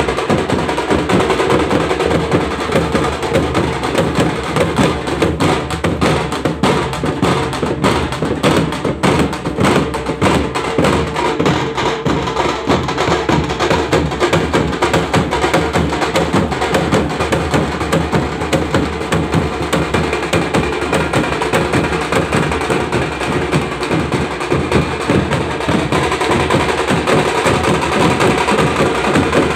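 Tasha drum band playing: several tasha kettle drums beaten with thin sticks together with larger bass drums, giving loud, dense, unbroken drumming.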